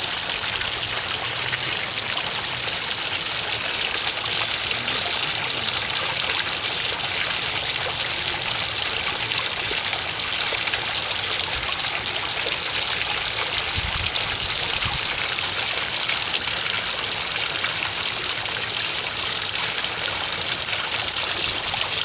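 Water spilling steadily over a cave-style pond waterfall rock (the Cave-006 "Maldives") and splashing into the pond below, an even, unbroken trickling rush.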